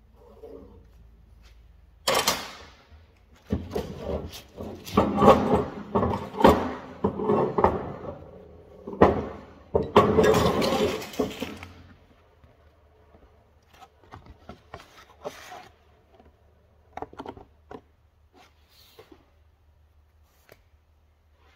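Steel excavator bucket shank knocked and slid about on a steel welding table: a sharp clank about two seconds in, then about ten seconds of clunking and scraping, then a few light taps and clicks.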